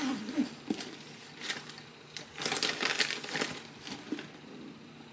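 Makeup items clicking and rustling as a small makeup case is rummaged through, in several uneven bursts, busiest around the middle of the stretch.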